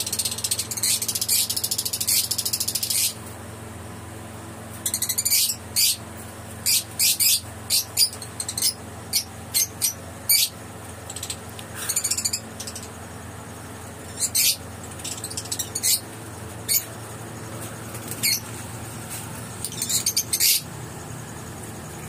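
A colony of Fischer's lovebirds calling with shrill, high chatter. A rapid run of calls fills the first three seconds, then short sharp calls come at irregular intervals, bunched in the middle and thinning out toward the end.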